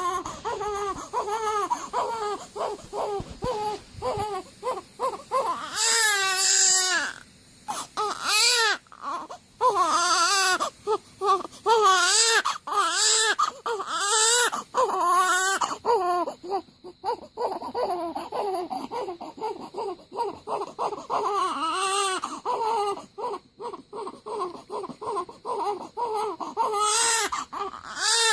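Newborn baby crying in repeated wavering wails with short gasps between, loudest in several outbursts and easing to quieter fussing in the middle.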